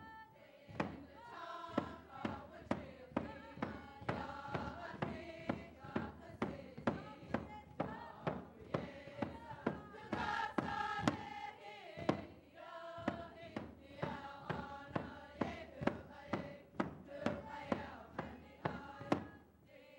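A group singing an Alaska Native dance song together over a steady skin frame-drum beat, about two strikes a second. The song briefly breaks off about twelve seconds in, then resumes with the drum.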